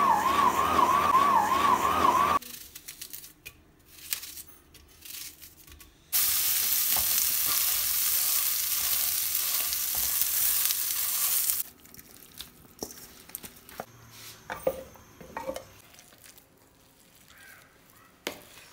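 SECO electric stand mixer running with a wavering whine as its hook kneads dough for about two seconds. After a short lull, a paratha sizzles loudly in hot oil in a frying pan for about five seconds. Then come quiet clicks and scrapes of a potato masher working boiled potatoes in a plastic bowl.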